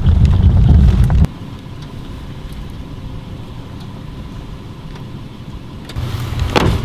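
Low road and engine rumble inside a Toyota pickup's cab while driving. It cuts off abruptly about a second in, leaving a quieter, steady outdoor background. Near the end a low wind rumble on the microphone comes in, with a short thump.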